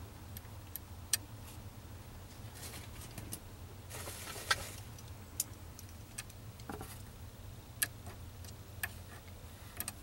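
Small parts clicking and tapping as fingers fit a clip and a bushing back onto a steering column, with a brief scraping rustle about four seconds in, over a low steady hum.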